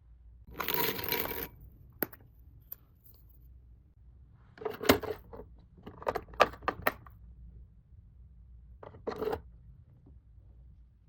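Small items and packaging being handled: several bursts of crinkling and rustling, with sharp clicks and clinks.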